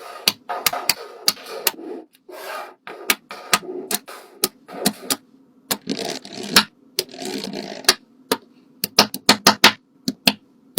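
Quick series of sharp clicks and taps mixed with short scraping and rubbing sounds, in an irregular rhythm.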